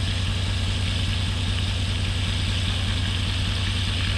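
An engine running steadily at idle with a low, even hum, over the hiss of breaded catfish fillets frying in hot oil.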